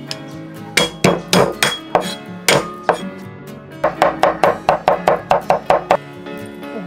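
Cleaver chopping garlic on a thick round wooden chopping block: a string of uneven knocks, then a quicker, even run of about five chops a second that stops about a second before the end. Background music plays under it.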